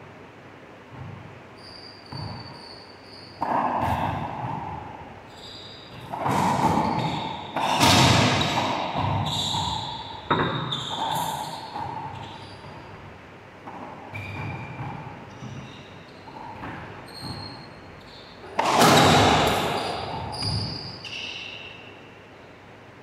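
Racquetball rally: a string of sharp cracks as the ball is struck and hits the walls, each ringing out in the enclosed court, with short high sneaker squeaks on the hardwood floor between the hits.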